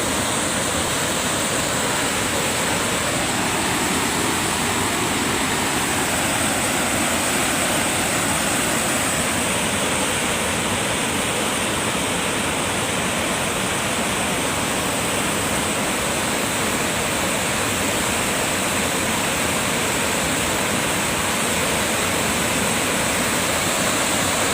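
Steady rushing of fast-flowing floodwater, an even roar without breaks.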